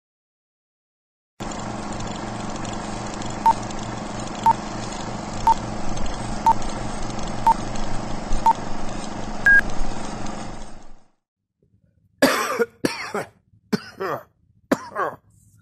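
Old-film countdown leader effect: a steady projector hum with crackle and a short beep once a second, six times, then a single higher beep, ending suddenly. After a brief pause, a man coughs several times in short bursts.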